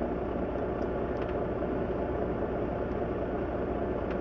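Semi-truck's diesel engine idling, a steady hum heard from inside the cab, with a few faint clicks.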